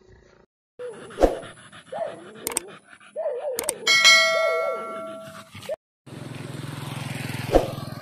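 A dog whining in short, wavering cries, with sharp clicks and a bright chime about four seconds in. From about six seconds a motor scooter's engine hums past, swelling toward the end.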